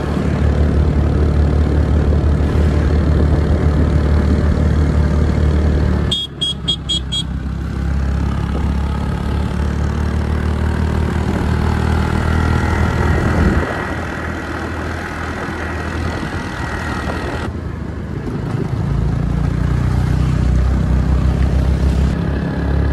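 Heavy wind and road rumble while riding a scooter, with a vehicle horn tooting several times in quick succession about six seconds in.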